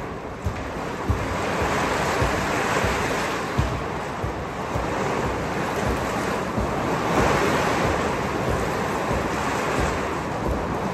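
Steady hiss of rain falling on a corrugated metal roof, with occasional soft thuds of a football being kicked.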